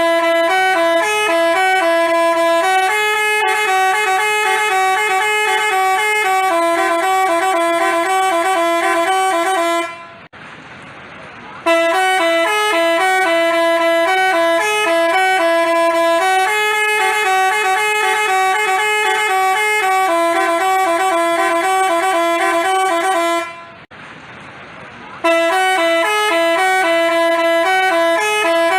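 Telolet Basuri multi-tone bus horn playing a melody of loud, steady horn notes switching between pitches, stopping twice for about a second and a half before the same tune starts over.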